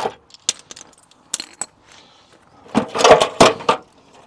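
Light metallic clinks and rattles from a damaged car front wing being worked free of its bracket by hand, with a cluster of louder knocks about three seconds in.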